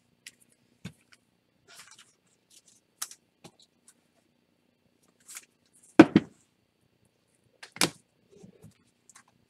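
Hands handling 2018 Topps Chrome baseball cards and setting them down on a table: scattered light taps and clicks, with a louder double knock about six seconds in and another near eight seconds.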